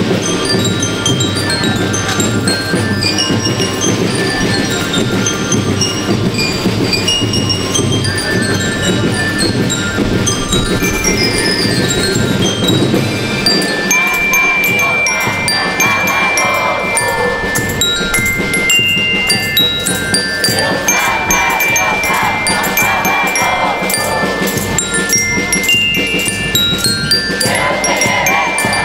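School rhythm band playing: marching bell lyres ring quick rising and falling runs of notes over drums and cymbals. About halfway through the drums drop out, leaving the lyres playing longer held high notes.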